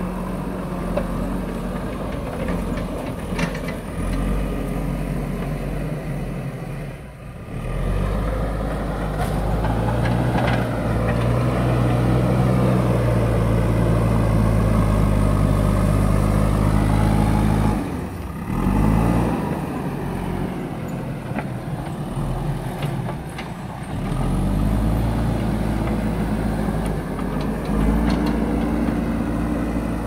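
JCB backhoe loader's diesel engine running under load as the front bucket pushes and lifts soil, its revs rising and falling with the work. The engine note drops briefly twice, about a quarter and about three-fifths of the way through.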